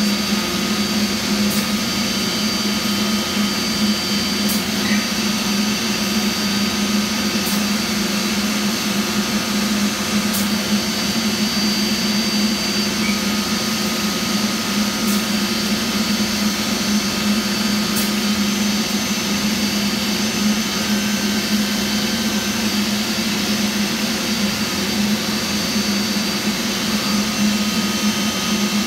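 Holz-Her Eco-Master 7120 CNC router running: a steady machine hum with a thin high whine above it and a few faint ticks.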